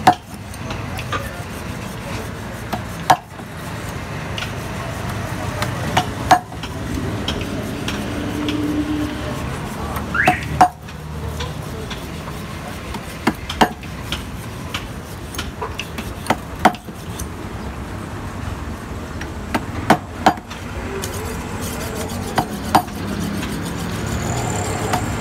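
Hammer knocking nails through the rubber floor of a tire tub: about fifteen sharp, separate blows at uneven intervals, over a steady background noise.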